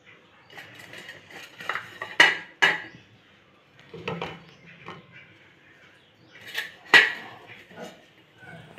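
Kitchen pots and utensils being handled: a handful of sharp clinks and knocks, the loudest a little after two seconds and again near seven seconds.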